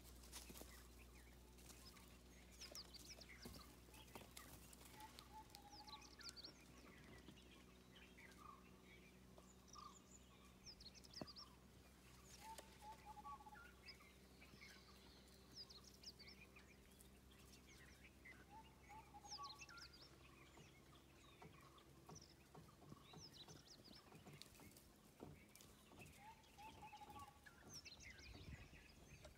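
Faint birdsong: many short, high chirps and whistles throughout, with a lower call repeating every six or seven seconds, over a low steady hum that fades out near the end.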